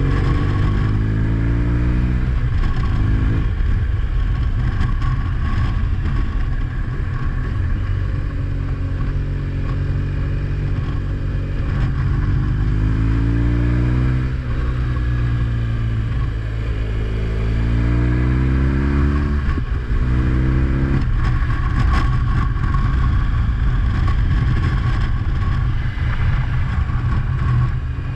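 A motor vehicle's engine running while under way. Its pitch climbs as it accelerates and drops abruptly at each gear change, and this happens several times over a steady rumble.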